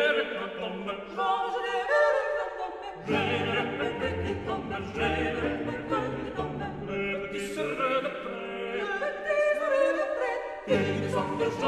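Background choral music: a choir singing slow, sustained classical lines in several parts. The low voices are silent at first, come in about three seconds in, and drop out again for a few seconds near the end.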